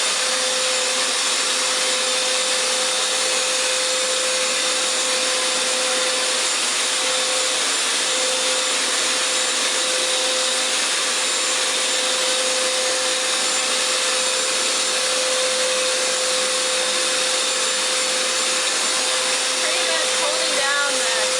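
Hoover FloorMate hard-floor washer running in wash mode, its suction motor and spinning brush roll making a loud, steady whir with a steady hum through it.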